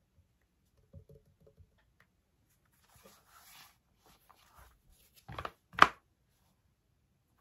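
Handling of an iPad in a plastic folio case: soft rubbing and light taps, then two sharp knocks about half a second apart a little past halfway, the second much the loudest.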